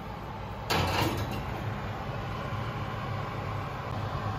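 A glass baking dish set onto an oven's wire rack: a sudden clatter of glass and metal a little under a second in, with a few quick rattles. After it comes a steady hum from the open oven.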